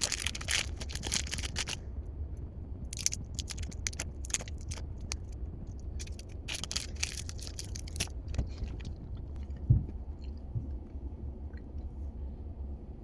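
Crinkling and tearing of a Reese's peanut butter cup's wrapper as it is unwrapped, in three bouts of crackle over the first eight seconds, followed by quieter chewing. A low steady hum runs underneath.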